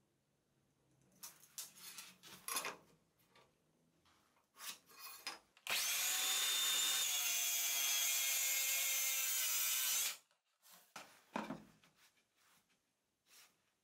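DeWalt cordless circular saw running and cutting through a plywood sheet for about four and a half seconds with a steady whine, then cutting off abruptly. Before it, light scraping and handling of a pencil and tape measure on the wood; after it, cut plywood pieces knock and slide on a wooden floor.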